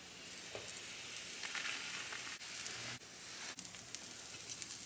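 Food sizzling in a hot frying pan: a steady, fine crackling hiss with a few light clicks.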